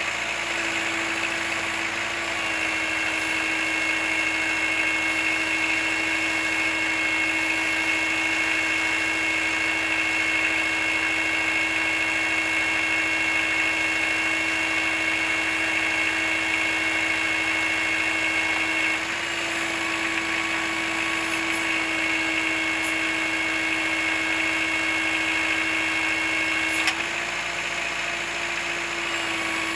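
Kubota L4600 tractor's diesel engine running steadily while the BH92 backhoe is worked. Its note shifts slightly three times, about 2.5, 19 and 27 seconds in, with a short click near the last change.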